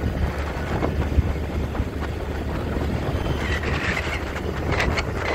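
Motor scooter running at riding speed: a steady low engine and road rumble with wind on the microphone.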